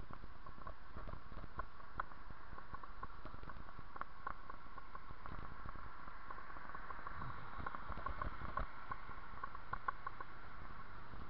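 Bicycle riding over a paved path: a steady low rolling rumble with many irregular light clicks and rattles.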